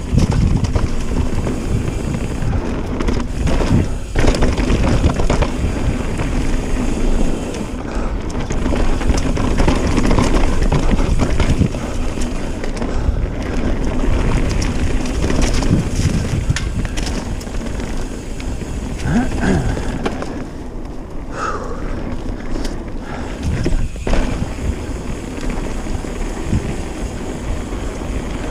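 Trek Remedy full-suspension mountain bike ridden down a rough dirt downhill trail: tyres rumbling over dirt and rock, with the bike knocking and rattling over bumps throughout. Wind buffets the action camera's microphone.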